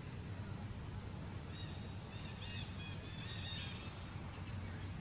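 A run of short, high chirping animal calls from about one and a half to four seconds in, over a steady low rumble.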